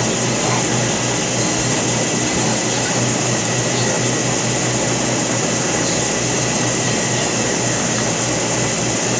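Steady, even hiss with a low hum underneath, unchanging throughout: constant room or recording background noise, with no distinct handling sounds.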